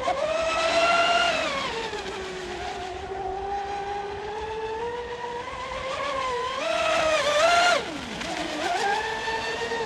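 A radio-controlled speedboat's motor and 42mm propeller whining at speed on the water. The pitch rises and falls with throttle as it makes its passes, climbing to a peak about seven and a half seconds in and then dropping sharply before it picks up again.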